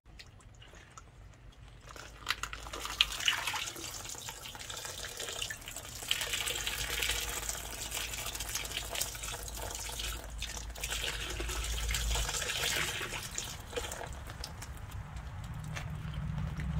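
Water dripping and splashing in a tub as soaked loofah gourds are handled and one is lifted out, streaming water, for its softened skin to be peeled off by hand. A couple of sharp knocks come a few seconds in.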